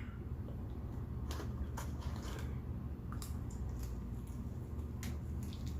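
Quiet eating sounds: faint scattered clicks of chewing and handling chicken nuggets and fries, over a steady low hum.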